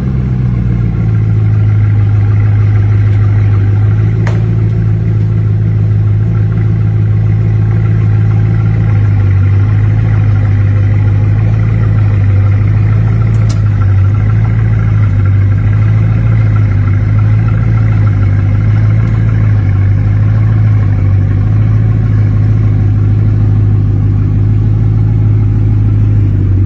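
Bugatti Divo's quad-turbocharged W16 engine idling, settling from a faster idle to a low, even idle about half a second in. A couple of faint clicks are heard.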